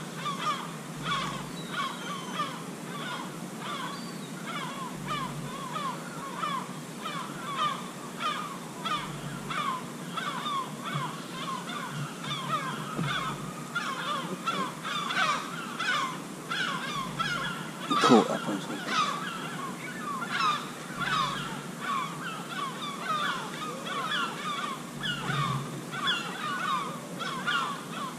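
Birds calling continuously, a steady run of short calls about three a second. A single sharp click about eighteen seconds in is the loudest sound.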